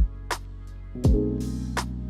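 Background music: a beat with deep kick-drum thumps and sharp snare hits over held chords.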